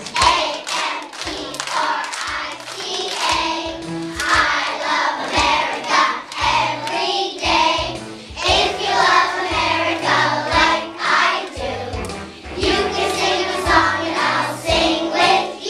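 A group of young children singing a song together, clapping their hands along with it.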